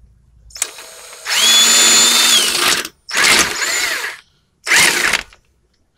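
Impact wrench running a 19 mm socket to tighten a suspension bolt: one long burst with a steady whine that drops as it stops, then two shorter bursts.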